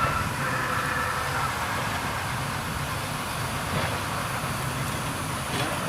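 Krupp D300 diesel-hydraulic shunting locomotive running with a steady low rumble while moving carriages, with a faint high squeal during the first second or so.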